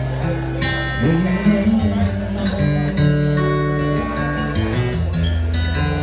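A man singing into a microphone over an acoustic guitar, in an unplugged live set.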